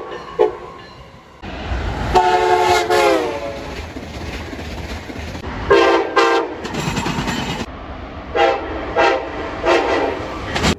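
Amtrak locomotive air horn sounding a chord of several notes over the rumble of a passing train. A long blast about two seconds in drops in pitch toward its end as the train goes by, followed by a run of short blasts.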